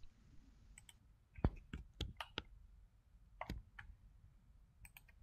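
Faint, scattered clicks of a computer mouse, about ten, with a quick run of several around two seconds in.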